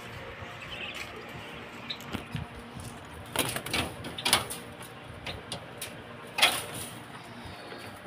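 Steel-framed wire-mesh pigeon cage door rattling and clanking as its latch is undone and the door is pulled open, with a few sharp knocks around the middle.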